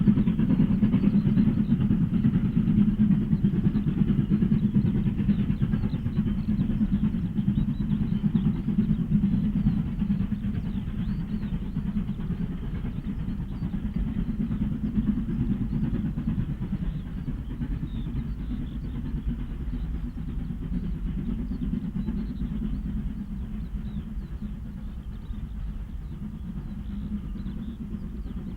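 Steam-hauled train running past, a steady low rumble that slowly fades as it draws away.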